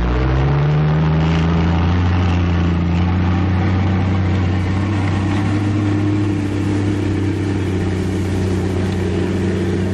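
M4 medium tank's engine running hard, with a low drone that rises in pitch during the first second and then holds steady.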